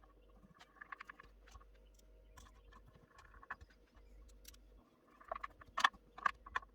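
Faint scattered clicks and light rustling taps, like small objects being handled, with a few sharper, louder clicks close together near the end.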